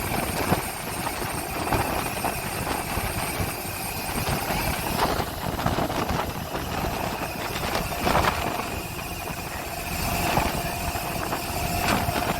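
A motor engine running steadily, with a few short knocks and clatters over it.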